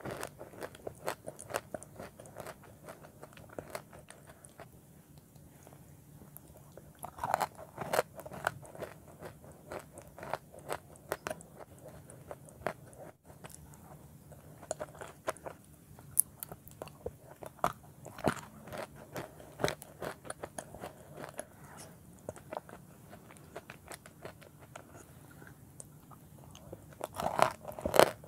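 Chalk coated in wet clay paste being bitten and chewed: a run of crisp crunches and crackles, with louder bursts of biting about seven seconds in and again near the end.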